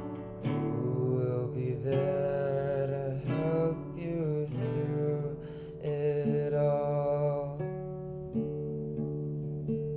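Acoustic guitar strumming chords in an instrumental passage of a song, with no singing. The playing eases to softer strums after about three-quarters of the way through.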